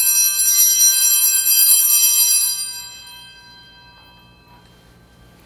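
A set of brass altar (Sanctus) bells shaken in a continuous bright jingle at the elevation of the consecrated host. The shaking stops about two and a half seconds in, and the bells ring out and fade over the next two seconds.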